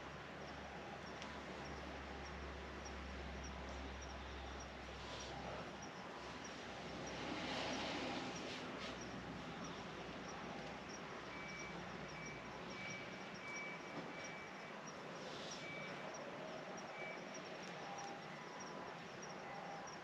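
Steady rain falling, with crickets chirping in short, evenly spaced pulses over it. A brief louder rush of noise comes about seven seconds in.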